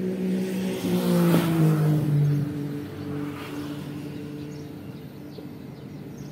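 A motor vehicle engine passing close by: its hum swells, drops in pitch about a second and a half in as it goes past, then fades away.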